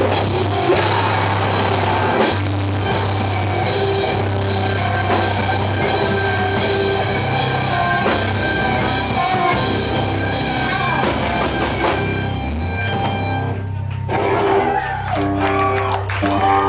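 Loud live heavy rock band playing in a small room: pounding drums, distorted electric guitars and bass. About twelve seconds in the drum and cymbal wash drops away while low bass and guitar notes ring on.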